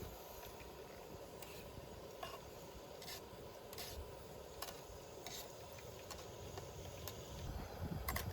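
Faint, short scratchy strokes, roughly one a second, over a low steady background hiss.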